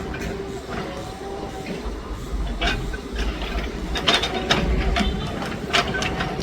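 Komatsu PC200 hydraulic excavator at work: its diesel engine runs steadily with a low rumble and a steady whining tone, broken by several sharp metallic clanks and knocks, the loudest about four and six seconds in.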